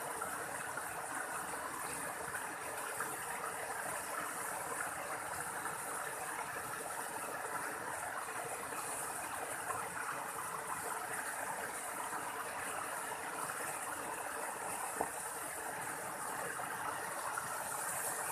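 Steady rushing water of a waterfall, with one faint brief click about fifteen seconds in.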